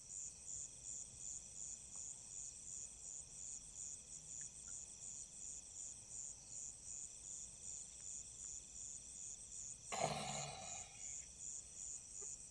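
Crickets chirping at night in a faint, steady, high pulsing trill, about three pulses a second. Near the end comes a short, louder vocal sound from a person.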